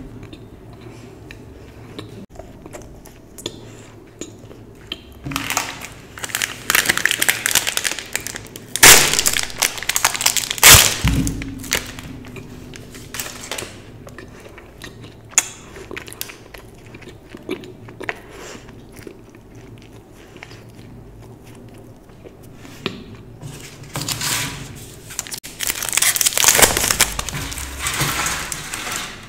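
Close-up chocolate-eating sounds: candy wrappers crinkling in loud stretches, two sharp cracks of chocolate breaking near the middle, and crunchy chewing between.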